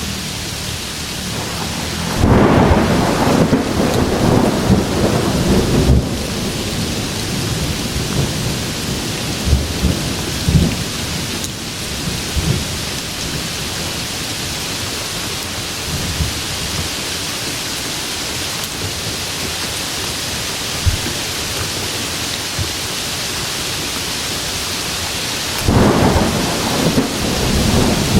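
Steady heavy rain hiss with rolling thunder: a long rumble about two seconds in that fades by six seconds, a few low cracks around ten seconds, and a new peal starting near the end.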